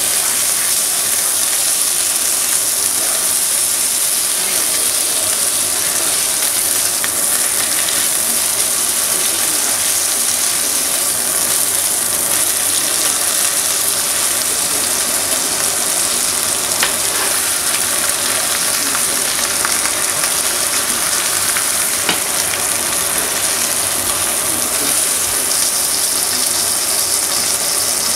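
Beef roast sizzling steadily as it sears in hot fat in a stainless steel roasting pan, with a few faint clicks from the metal tongs turning it.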